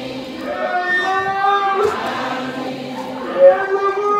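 Devotional chanting: voices intoning drawn-out melodic notes that slide between pitches with short breaks, in the style of Islamic supplication or dhikr.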